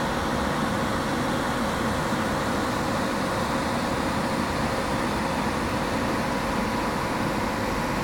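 ChS2T electric locomotive standing with its equipment running: a steady whirring hum with a constant tone, unchanging throughout.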